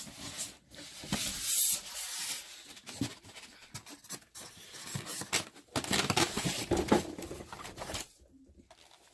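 Rustling and tearing handling noises, like plastic or paper packaging being crumpled and pulled, in two main spells, the second ending abruptly near the end.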